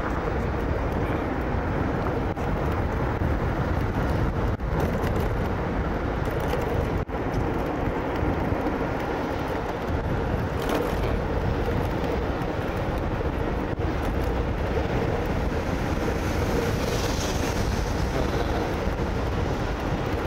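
Steady road-vehicle noise: a continuous low rumble with a faint steady hum and no distinct events.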